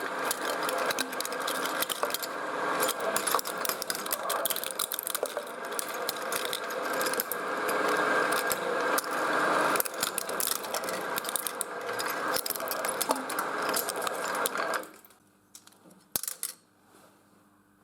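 Shredder grinding die-cast metal toy cars: a steady motor with rapid, continuous crunching and cracking of metal and plastic. It stops abruptly about three-quarters of the way in, leaving near silence with one short noise.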